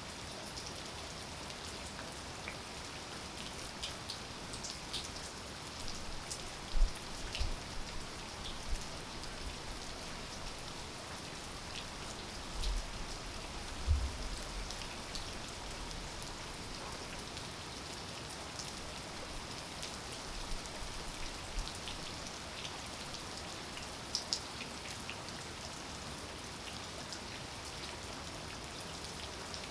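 Steady rain falling, a continuous hiss with separate drops clicking close by. A couple of dull low thumps stand out, about 7 and 14 seconds in.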